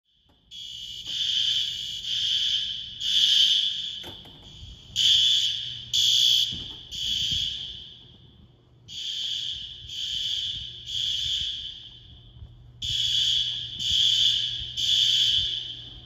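System Sensor SpectrAlert Advance fire alarm horns sounding the temporal-3 evacuation pattern: three loud half-second blasts, then a pause, repeating about every four seconds. A fainter steady horn tone carries on between the groups.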